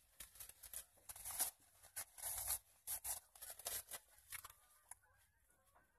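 Faint, irregular crunching and crinkling from eating a sandwich: a mouthful being chewed with dentures and a paper napkin being handled, in short bursts that stop about five seconds in.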